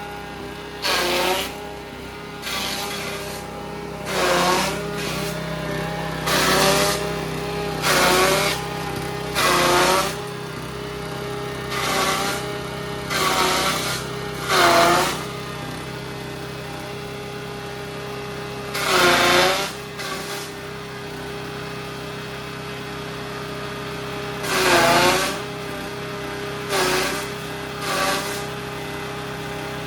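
Small engine-driven YM3000 mini chopper running steadily, with a dozen or so brief loud surges of chopping noise as material is fed in. Each surge makes the engine pitch dip under the load before it recovers.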